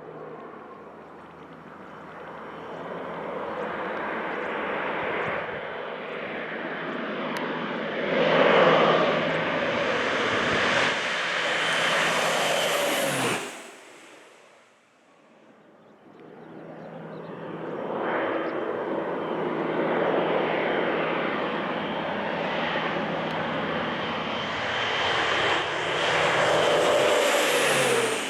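Air Tractor AT-602 crop duster with a Pratt & Whitney PT6A-60AG turboprop making two low, fast passes. Each time the sound builds and ends in a falling pitch as the plane goes by. The first pass drops away abruptly about halfway through.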